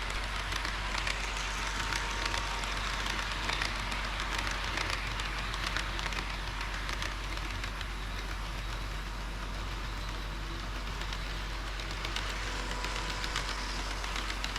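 HO-scale model train running on the layout track: a steady rolling hiss full of small irregular clicks from the wheels on the rails, over a steady low hum.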